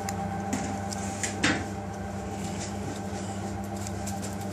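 Chicken being handled between stainless-steel dishes: a few light clicks and one sharp knock of metal dishware about a second and a half in, then a faint crumbly rustle as breadcrumbs are pressed onto the meat, all over a steady electrical hum.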